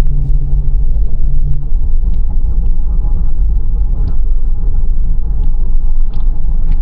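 Jeep driving, heard from inside the cabin: a steady low rumble of engine and road noise, with a low hum that drops away about one and a half seconds in.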